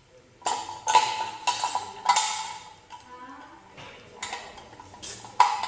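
Hard parts of a manual meat grinder knocking and clinking together as it is assembled: a quick run of sharp clacks, each with a short ring, starting about half a second in, then a quieter stretch, then more clacks near the end.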